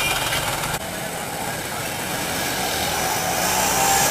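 Busy city street traffic: a steady mix of running bus, auto-rickshaw and motorcycle engines. The sound changes abruptly under a second in.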